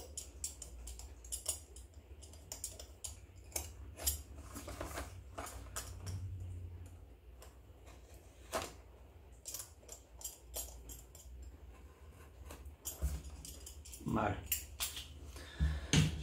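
Utility knife blade cutting the tape on a small cardboard box, with irregular light scratches, clicks and taps of the blade and box being handled.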